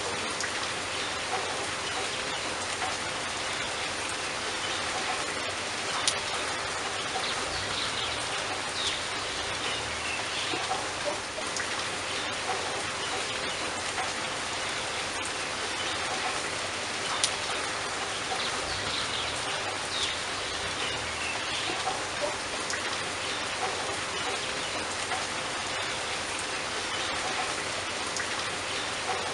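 Steady rain falling, an even hiss of many drops, with a few sharper single drip splats now and then.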